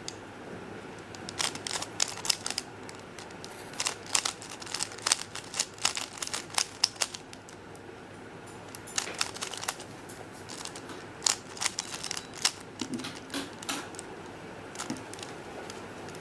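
Plastic 3x3 Rubik's cube, a Dayan ZhanChi speedcube, being turned quickly by hand while it is being solved: irregular runs of sharp clicks as the layers snap round, with a brief pause a little past halfway.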